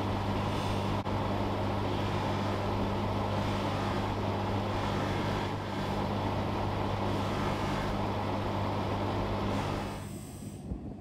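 Bench polishing motor running with a steady hum, its cloth buffing wheel spinning while green polishing compound and then a steel watch part are held against it. The sound drops to a quieter level near the end.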